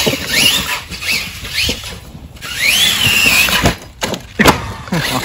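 RC monster truck's electric motor and drivetrain whining in short rising bursts as the throttle is blipped, then one longer whine that rises and falls. Near the end come two sharp knocks as the truck crashes and lands on its roof.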